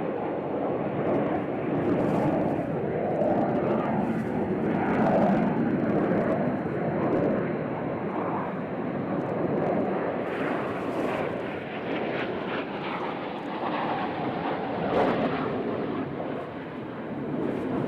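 Jet aircraft engine noise: a continuous rumble that swells and eases several times as the jets fly past.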